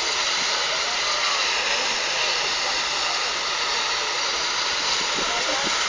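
Steady hiss of steam escaping from a standing steam locomotive.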